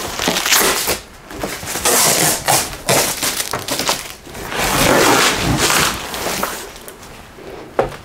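Cardboard box and styrofoam packing being handled and shoved about, a series of scraping, rustling stretches with a sharp knock near the end.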